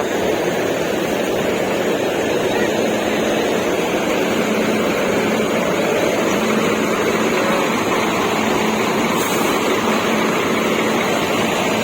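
Diesel engine of a large Volvo coach running steadily as it pulls in, a constant drone with a steady low tone, with a short hiss about nine seconds in.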